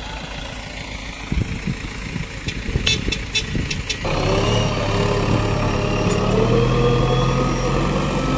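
A short run of sharp clicks, then from about four seconds in a heavy diesel engine of the recovery machinery running loudly, its pitch rising slightly.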